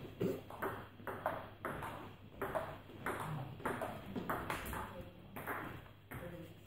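Table tennis rally: the ball clicking off the table and the bats in quick alternation, two to four hits a second.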